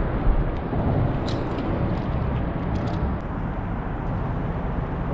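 Steady low rumble of road traffic crossing the bridge overhead, with a few faint ticks.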